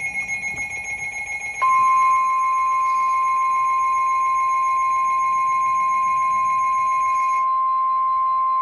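NOAA Weather Radio Emergency Alert System signal: a brief warbling burst of the SAME data header, then, about a second and a half in, the steady 1050 Hz warning alert tone, a single loud continuous beep.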